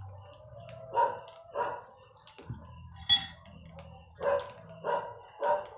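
A dog barking repeatedly in short single barks, about seven of them spaced roughly half a second to a second apart, the sharpest about three seconds in.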